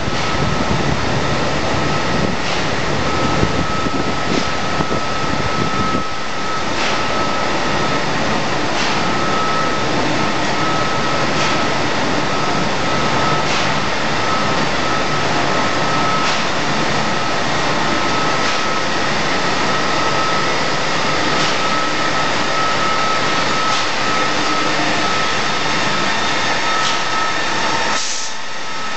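Steady running noise of chemical-plant machinery, with a constant high whine and a faint tick about every two and a half seconds.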